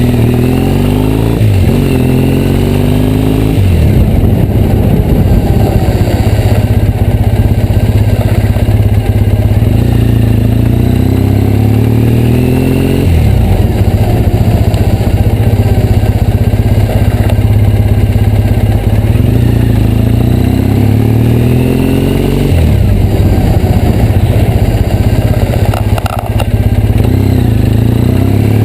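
Triumph Bonneville T100 parallel-twin motorcycle being ridden, its engine note climbing and dropping several times as the speed changes. Over it runs a high, cicada-like hiss from the front brake, which has just been fitted with EBC HH sintered pads; the rider wonders whether the pads still need bedding in or whether this is their normal sound.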